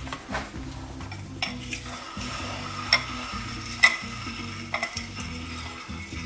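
A metal fork stirring a hot potassium hydroxide solution in a glass bowl, clinking against the glass a handful of times, the loudest about four seconds in, with a faint hiss in the middle.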